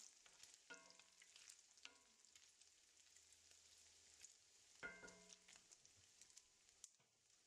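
Diced bacon frying in its own rendered grease in a cast iron skillet: a faint, steady sizzle full of fine crackles and pops, stirred with a wooden spoon.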